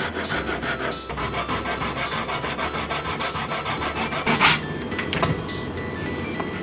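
Hand tool scraping on wood in quick repeated strokes, with one louder scrape about four and a half seconds in.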